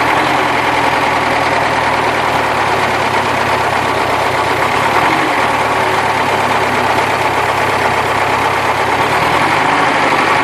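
ZAZ-968's air-cooled V4 engine idling, its pitch dipping briefly about halfway and shifting again near the end. A soft valve-train knock is still there, which the owner calls 'мягенький', not a real knock.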